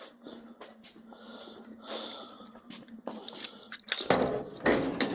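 Old brake and pedal assembly parts being handled: scattered light clicks, a soft hiss, then several loud clattering knocks over the last second or so.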